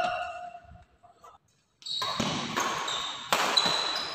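Badminton rally: sharp racket strikes on a shuttlecock. After a brief near-silent gap, the hits come about two seconds in and again about a second and a half later.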